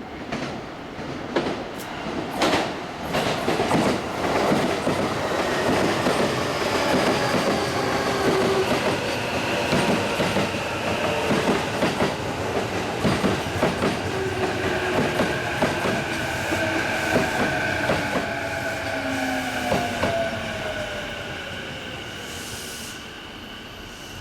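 JR East E233-series electric train running into the platform and slowing. Its wheels clack over the rail joints, and the motor whine slowly falls in pitch as it brakes.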